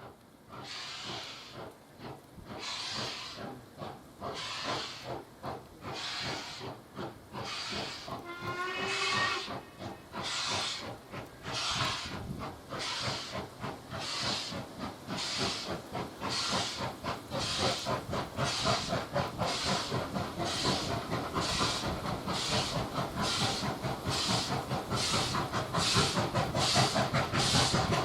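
Ex-LMS Ivatt 2MT 2-6-2T steam tank locomotive's exhaust beats, working hard up a steep gradient. The chuffs quicken from about one to about two a second and grow steadily louder as the engine approaches.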